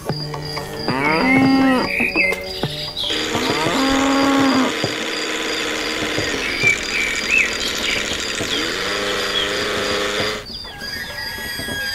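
Cattle mooing: three long, low calls, about a second in, around three to five seconds in, and again near nine seconds, over a steady hiss that starts about three seconds in and stops shortly before the end.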